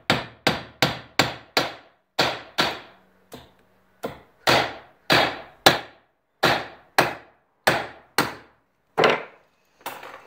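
Small jeweller's hammer striking a platinum bar on a metal block, about seventeen sharp blows at roughly two a second in short runs with brief pauses. The bar is being forged square and a starting twist is being hammered out.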